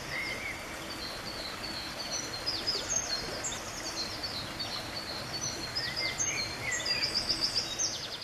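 A stream running steadily, with a small bird singing over it: a high, rambling song of quick trills and short whistles that grows louder near the end.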